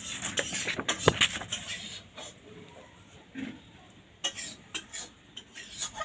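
Oil pastel sticks clattering against one another and the plastic tray as the box is rummaged through, a quick run of clicks and knocks that is loudest about a second in, followed by a few scattered light taps.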